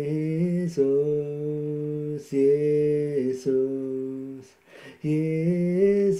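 A man singing a slow worship chorus, drawing out the word 'Jesus' in long, steady held notes with short breaths between phrases.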